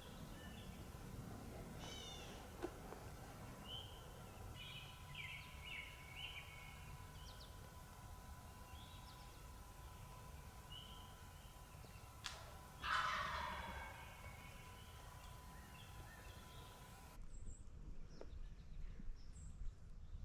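Wild turkey gobbling once, a loud rapid rattling call that falls in pitch, about two-thirds of the way in. Small birds chirp here and there around it.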